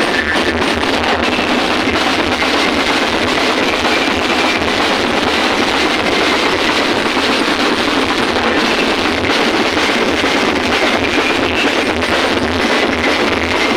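Loud, dense percussion music: drums beaten fast and without pause.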